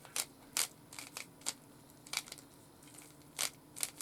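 Plastic Rubik's cube being twisted layer by layer: about ten sharp, irregular clicks as the faces turn.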